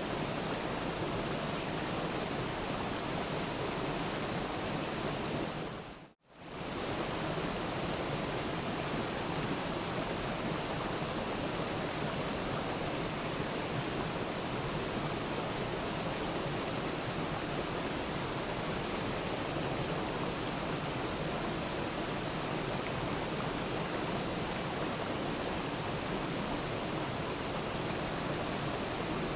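Waterfall rushing in a steady, even roar of falling water. About six seconds in it fades out to silence for a moment and straight back in, like the seam where the recording loops.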